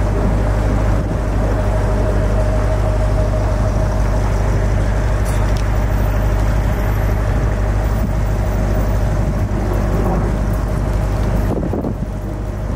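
Steady low motor-vehicle rumble with a faint steady hum running through it, easing slightly near the end.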